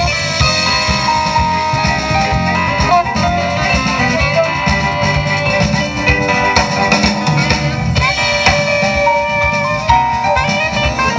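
Live jazz band playing: violin and saxophone carrying melody lines over bass guitar and a drum kit.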